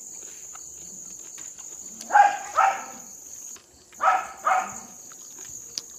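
A dog barking four times, in two quick pairs about two seconds apart, over the steady high chirring of crickets.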